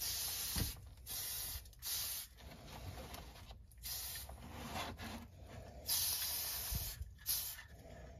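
Aerosol spray paint can spraying in a run of short hissing bursts, stopping and starting, the longest lasting about a second just after the six-second mark.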